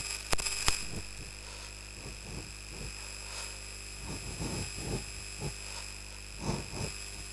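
Cloth duster rubbing across a whiteboard in a run of soft wiping strokes, about two a second, after two sharp clicks near the start.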